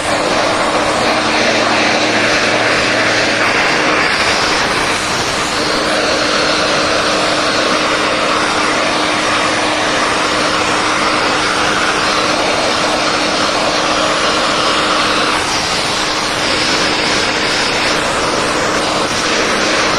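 VacuFlo 560 central vacuum running: a loud, steady rush of suction air with a constant hum under it. The rush changes slightly a few times.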